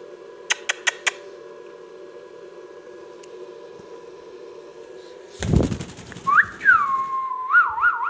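A clear whistle that glides up and then falls to hold one steady note, followed by two short wavering notes, coming in near the end after a loud handling thump about five and a half seconds in. A few sharp clicks sound about a second in.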